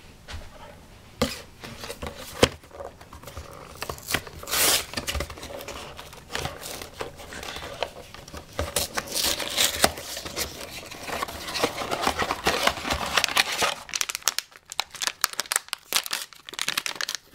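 A cardboard blind box opened by hand, then its foil wrapper torn and crinkled as a small vinyl figure is unwrapped: a long run of rustling, crackling and sharp snaps.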